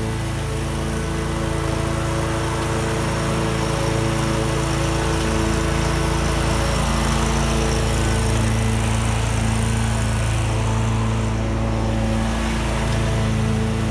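Exmark Turf Tracer 36-inch walk-behind mower with a Kawasaki FS481V V-twin engine, running steadily at mowing speed as it cuts grass. It gets a little louder a few seconds in as the mower comes closer.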